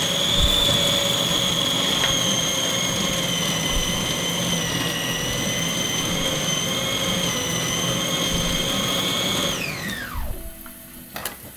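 Electric food chopper grinding minced meat and onion with a steady high-pitched motor whine. About nine and a half seconds in the motor switches off and winds down with a falling pitch, followed by a few light clinks.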